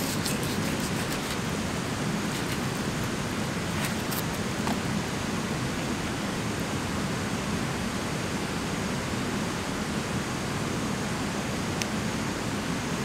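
A steady rushing noise throughout, with a few faint sharp ticks near the start, around four seconds in and near the end as a small knife cuts through raw pork on a banana leaf.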